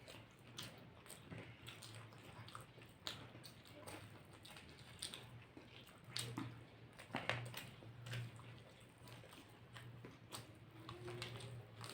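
People chewing and biting into fried snacks such as cutlets and samosas: irregular crunches and mouth smacks, a few louder bites around the middle, over a faint low hum.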